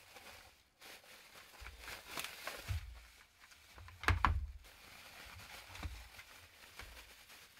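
Bubble wrap crinkling and rustling as it is pulled off by hand, with low handling bumps. The loudest crackle comes about four seconds in.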